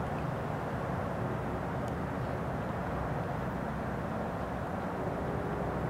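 Steady low outdoor background rumble of the kind distant traffic makes, with no distinct events; a faint steady hum joins near the end.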